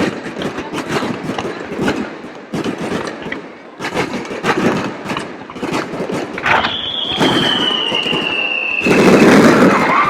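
Fireworks crackling and popping in quick succession. About six and a half seconds in, a whistling firework sounds one long whistle that slowly falls in pitch. Near the end a louder rush of noise comes in.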